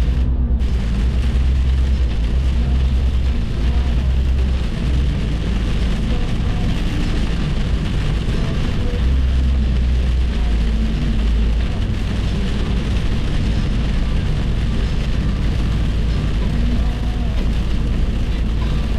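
Steady road and engine rumble heard inside a car cruising at highway speed, a deep drone with a constant hiss of tyres and wind over it.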